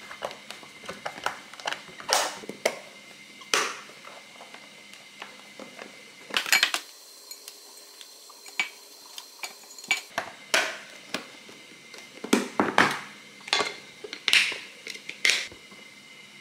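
Plastic lid knocking and pressing against a glass food container that is too full of broccoli for it to close, then broccoli florets being moved into another glass container: a run of irregular clicks and knocks.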